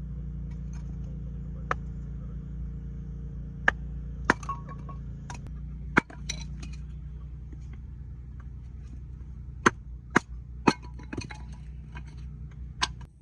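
Scattered sharp clinks and knocks, about a dozen, irregularly spaced, as of hard objects being handled and set down, over a steady low rumble.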